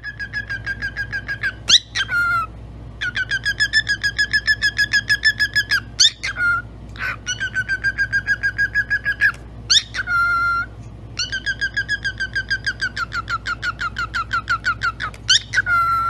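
Cockatiel calling in long trains of quick repeated whistled notes, about six or seven a second, broken four or five times by a short upward-swooping call.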